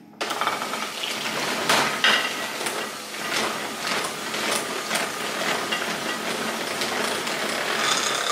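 Electric hand mixer switched on just after the start, beating eggs one at a time into a creamed butter cake batter, with repeated knocks of the beaters against the glass bowl.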